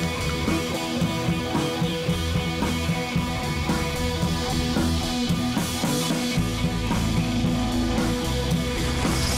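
Background rock music with electric guitar and drums.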